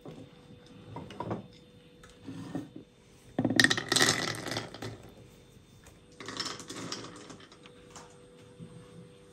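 A wooden footed bowl handled on a wooden counter: a few light knocks, then two bursts of scraping and rattling. The first burst, about three and a half seconds in, is the loudest; the second comes a couple of seconds later.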